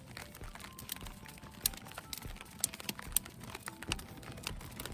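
Light rain coming down, heard as scattered irregular ticks of drops over a soft hiss.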